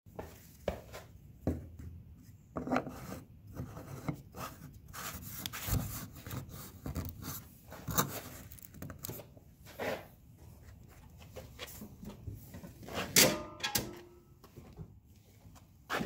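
A 3D-printed plastic gas cap being screwed by hand onto a yard tractor's fuel filler neck: irregular scraping and rubbing with scattered clicks as the tight plastic threads turn. A single sharper knock, the loudest sound, comes about two-thirds of the way through.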